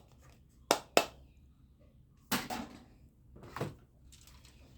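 Two sharp plastic clicks about a second in, then a couple of duller knocks and rustles: plastic toys being handled.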